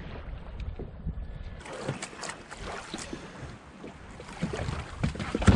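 Wind rumbling on the microphone, then a run of knocks, clicks and clunks on a kayak from about a second and a half in, with a loud thud near the end.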